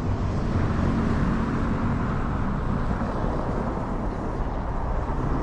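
Street traffic: a steady rumble of vehicle engines and tyres, with a low engine hum standing out in the first few seconds.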